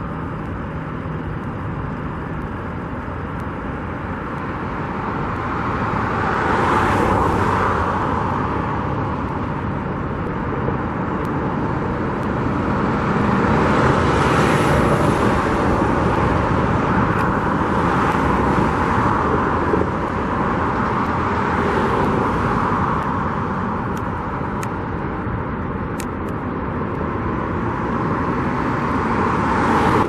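Road traffic: a steady hum of passing vehicles, with four or five cars going by one after another, each swelling and fading over a few seconds. A few faint clicks come near the end.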